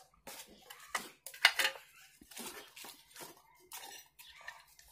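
A plastic electrical switch-socket plate and its cardboard box being handled: a string of short clicks and knocks, the loudest about a second and a half in.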